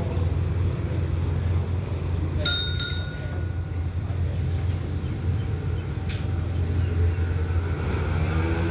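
A diesel locomotive engine idling with a steady low hum, and a single bright metallic ding about two and a half seconds in. Near the end the engine note starts to rise as it throttles up.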